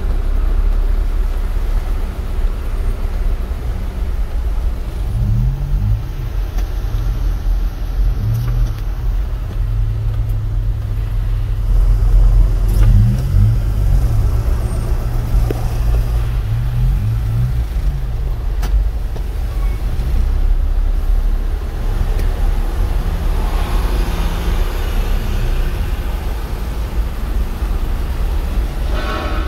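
Low rumble of a vehicle's engine and cabin as it drives through floodwater. Between about five and eighteen seconds in, the engine note repeatedly rises and falls.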